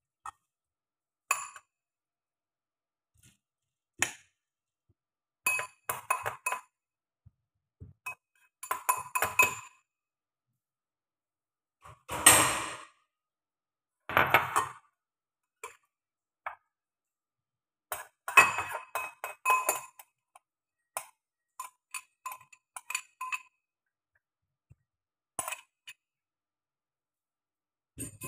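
Ceramic bowls and dishes clinking and knocking together as they are handled at the kitchen counter, in irregular clusters of short ringing clinks with pauses between. A few longer, louder clatters come about twelve, fourteen and eighteen seconds in.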